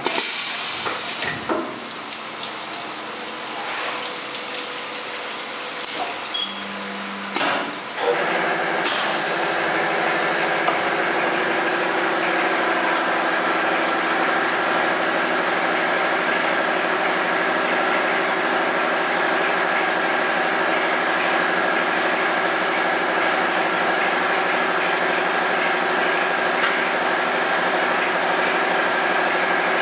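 A magnetic particle inspection machine for shafts starts up about eight seconds in, after a few clicks and knocks, then runs steadily with a hum over an even hiss.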